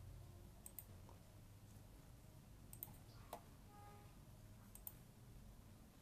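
Faint computer clicks: three quick pairs of clicks about two seconds apart and one single click, over a low steady hum.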